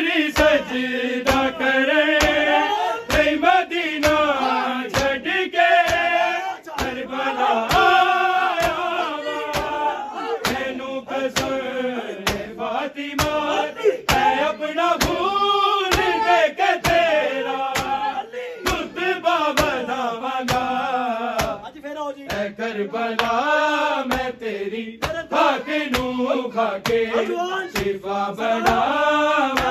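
Men chanting a Shia noha lament in chorus, kept in time by the mourners' rhythmic chest-beating (matam), about two sharp slaps a second.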